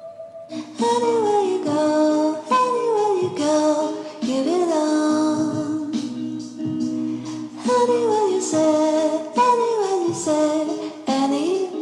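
Background music: a song with a female singing voice over guitar accompaniment, sung in gliding, falling phrases.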